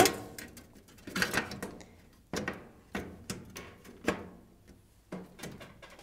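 Hotpoint Creda cooker's control panel being pushed and settled back into place by hand: a series of knocks and clicks, roughly one a second.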